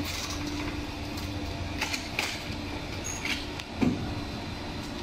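A vehicle engine idles with a steady hum. A metal stretcher trolley clatters and knocks a few times as it is pushed into the back of a funeral vehicle.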